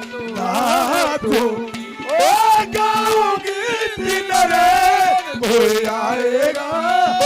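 Haryanvi ragni music: a sung melody with long, wavering held notes over a steady drone.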